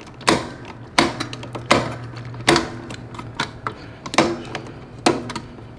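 Sharp metallic clicks, one every second or so with a short pause midway, as a hand nut driver turns and tightens the screw holding the electrical junction box to the dishwasher's sheet-metal frame.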